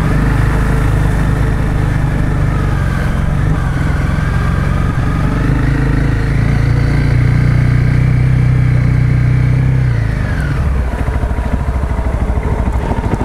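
Honda CRF250 Rally's single-cylinder engine running as the bike rides along, its pitch holding fairly steady with small rises and dips. About ten seconds in the engine speed drops and settles at lower revs.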